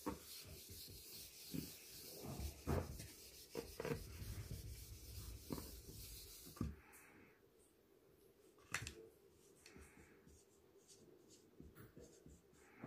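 Whiteboard eraser rubbing across a whiteboard in a series of back-and-forth scrubbing strokes, stopping after about seven seconds. After that it is much quieter, with a single sharp click near nine seconds and faint marker writing on the board near the end.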